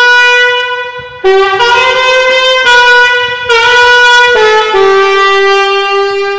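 Alto saxophone playing a slow, legato melody of held notes fingered in E major (E, G#, A, F#). It climbs to G#, drops to E, moves up to a repeated A, then steps down through G# and F# to a long final E.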